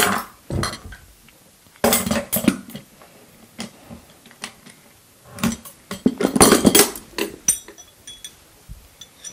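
Metal tubes of a light-stand frame clattering and knocking on a wooden tabletop as the frame is turned over and handled, in a few separate bursts, the biggest about six seconds in, followed by a faint metallic ring.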